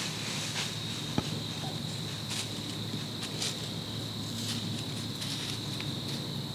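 Crickets trilling steadily in a continuous high-pitched drone, with scattered soft rustles and a single sharp click about a second in.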